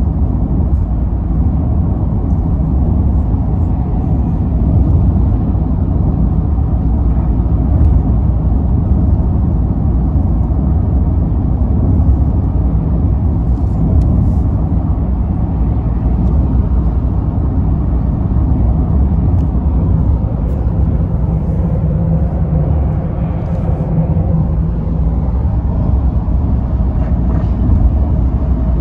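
Steady low rumble of road and tyre noise with engine hum, heard inside the cabin of a car driving along a motorway.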